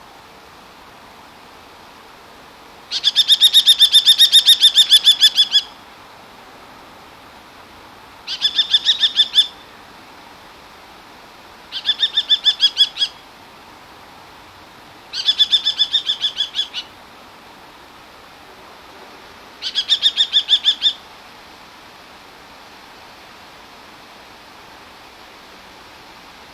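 Common kestrel calling its shrill kee-kee-kee: five bouts of rapid repeated notes, the first and longest about three seconds, the others one to two seconds, over a steady background hiss.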